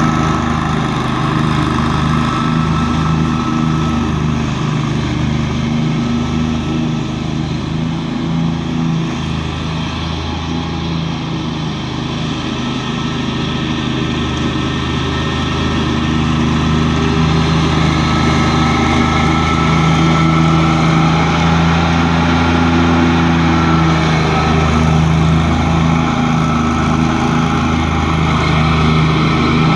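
Engine of a 2014 Exmark Lazer Z 72-inch-deck commercial zero-turn mower running steadily under load while cutting grass. It grows fainter about halfway through as the mower moves off, then louder again as it comes back close.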